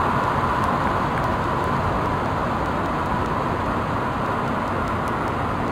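Road traffic passing on the street, a steady rush of tyre and engine noise that slowly eases off.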